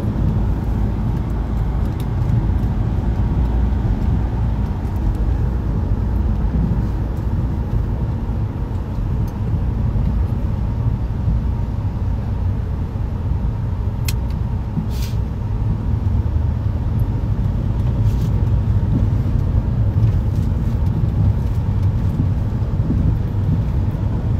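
Steady low rumble of a passenger van heard from inside its cabin.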